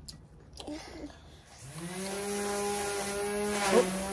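A lawnmower motor starts about one and a half seconds in, its pitch climbing quickly, then runs steadily, dipping briefly near the end.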